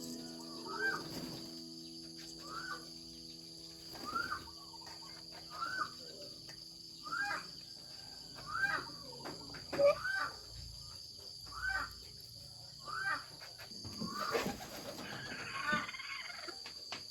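Farm poultry calling: a series of short, rising-and-falling calls about once every second or so, with a cluster of quick chirps near the end. Soft music tones fade out in the first few seconds.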